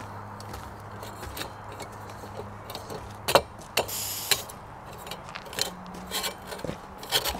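Small backpacking gas stove being screwed onto an isobutane canister and its folding metal pot supports swung out: scattered metallic clicks and scrapes, with a short hiss about four seconds in.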